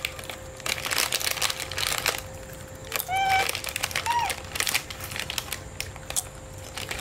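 Plastic foil snack packet crinkling in bursts as it is handled and dipped into. Two short high-pitched squeaks from a baby monkey come about three and four seconds in.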